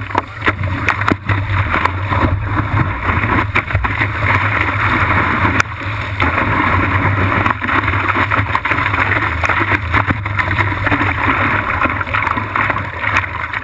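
Whitewater rushing and splashing around a surfboard as it rides a broken wave, heard close up from a camera mounted on the board, with frequent small clicks of water hitting the camera. A steady loud rush with no break.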